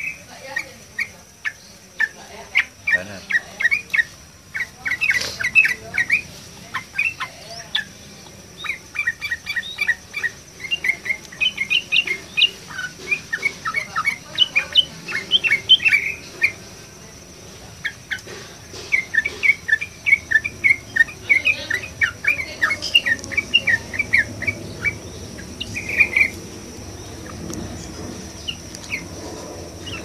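Yellow-vented bulbul (trucukan) singing: long runs of quick, short chirps, broken by two brief pauses and stopping near the end.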